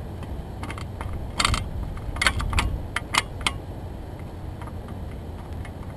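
A quick run of about eight sharp clicks and light knocks in the first half, over a steady low rumble of wind on the microphone.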